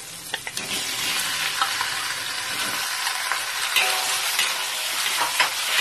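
Marinated chicken wings sizzling in hot oil in a wok. The sizzle swells about half a second in as the wings go in, then carries on as a metal spatula stirs them, with short clicks and scrapes against the pan.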